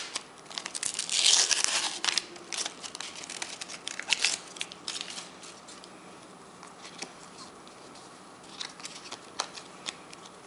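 A Panini sticker packet being torn open and crinkled by hand. The crinkling is loudest in the first two seconds, then thins into scattered rustles and small clicks, with only a few faint ticks near the end.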